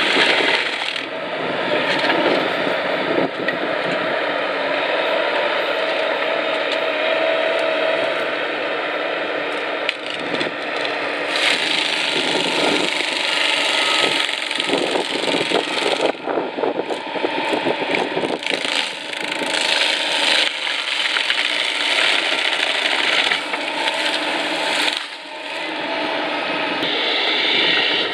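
Valley Tool FX26 Defender forestry mulcher on an excavator arm, its spinning drum shredding brush and a small tree: a dense, continuous grinding and clatter full of cracking and snapping wood and flung debris. It briefly eases near the end before biting in again.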